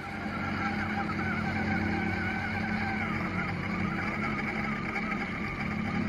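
A homemade remote-control buggy's small DC gear motors running, a steady motor whine that wavers in pitch.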